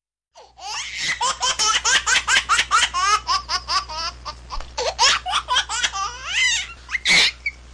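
A child laughing hard: a long run of quick bursts of laughter, about four or five a second, with a louder burst near the end.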